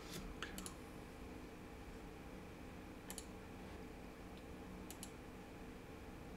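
Computer mouse clicks: a few quick clicks near the start, a double click about three seconds in and another near five seconds, over a faint steady hum.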